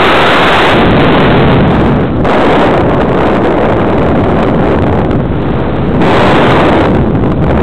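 Loud rushing airflow and motor noise on the small onboard camera of a radio-controlled model aircraft in flight. The rush dips briefly about two seconds in and again around five to six seconds in.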